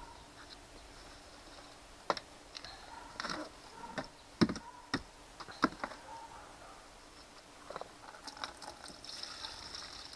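A lawnmower's plastic fuel tank being handled and knocked against a plastic tub: a run of sharp clicks and knocks in the middle, the loudest about four and a half seconds in, then a light trickle near the end as old gasoline drains out.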